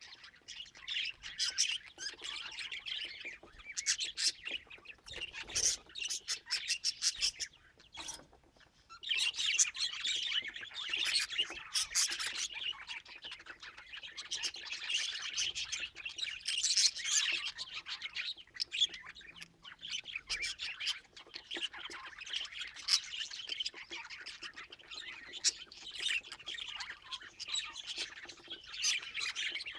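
Budgerigars chattering, with dense, rapid chirps and squawks that break off briefly about eight seconds in.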